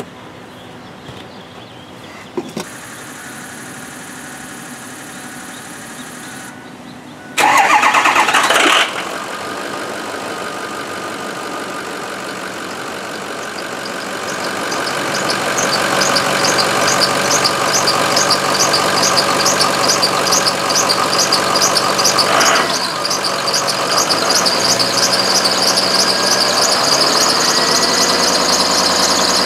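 6.0 Powerstroke V8 turbo diesel in a Ford F-250 cranked by the starter for about a second and a half, catching and then running at idle. Once it is running, the wet serpentine fan belt chirps quickly and repeatedly over the engine sound.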